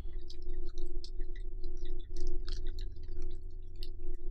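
Scattered small clicks and taps of chopsticks handling food, over a steady, evenly pulsing hum.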